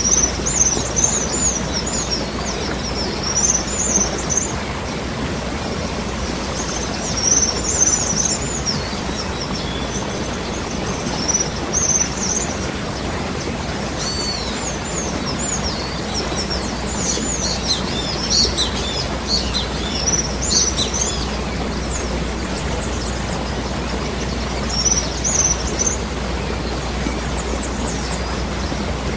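Waterfall water falling and rushing steadily, with small birds chirping in short high-pitched bursts on and off over it, busiest in the middle.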